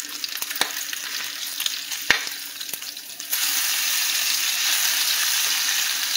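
Bacon frying in a nonstick skillet: crackling and spitting with a couple of sharp clicks, then about three seconds in the sizzle jumps louder and stays steady as the strips are turned over with a fork.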